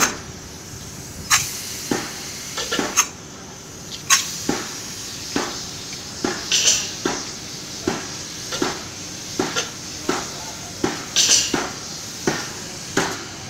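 Steady hiss of a polyurea spray gun spraying coating, broken by irregular sharp clinks, one or two a second.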